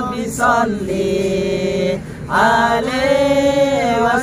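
Islamic devotional song chanted by voices, drawing out two long sung notes with a short break between them.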